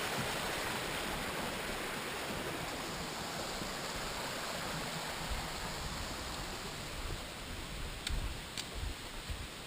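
Steady rushing noise, easing off slightly, with a few light clicks near the end.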